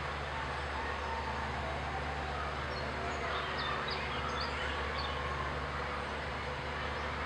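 Steady background rumble with a low, even hum, and a few short, high bird chirps about halfway through.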